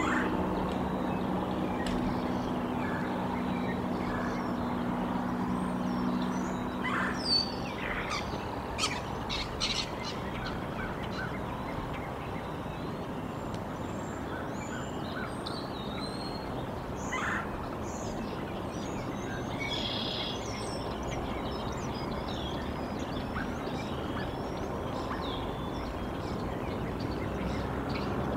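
Small wild birds chirping and calling here and there over a steady outdoor background hiss, with a few sharper calls about eight to ten seconds in. A low steady hum runs underneath for the first seven seconds or so, then stops.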